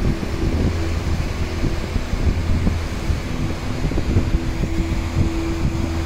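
Wind buffeting the phone's microphone in gusty low rumbles over the steady rush of Dynjandi's river and falling water.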